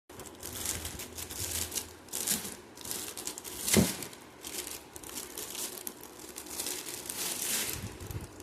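Packaging being handled during an unboxing: repeated bursts of crinkling and rustling, with some tearing. A single sharp knock comes a little before halfway.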